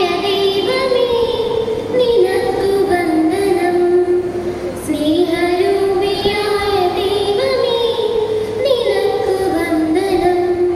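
Girls' voices singing a slow prayer song together into a microphone, the melody moving in long held notes.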